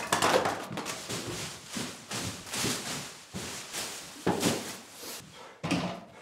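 Things being swept off a conference table by hand: a run of scuffing, rustling and clattering, with sharper knocks about four and about five and a half seconds in.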